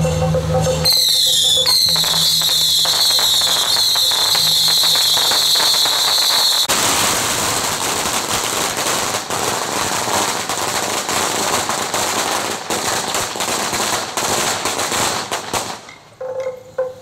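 A string of firecrackers going off, popping in a rapid, continuous crackle. For the first several seconds a high, shrill whistle that slides down in pitch and repeats sounds over the pops. The pops then thicken into a dense crackle that dies away about a second before the end.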